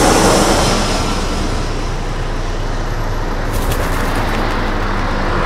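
Steady city street traffic: a continuous low rumble of car engines and tyres.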